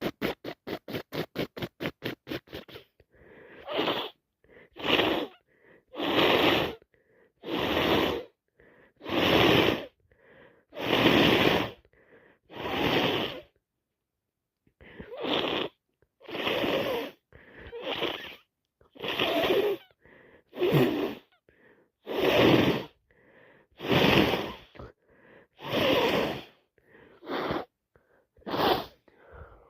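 A person with a heavy cold and allergies making a long run of forceful, congested nasal bursts, taken to be sneezes, about one every second and a half with a brief break partway through. It opens with a quick patter of short sounds, about seven a second, that stops about two seconds in.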